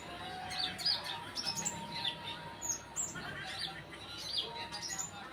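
Several olive-backed sunbirds calling together: quick, high, sharp chirps, many of them sliding down in pitch, several a second and overlapping. A faint steady tone hums underneath.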